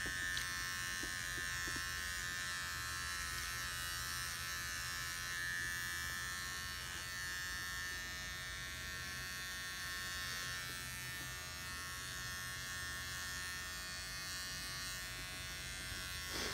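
Electric beard trimmer running with a steady buzz as it shaves the hair off a person's head.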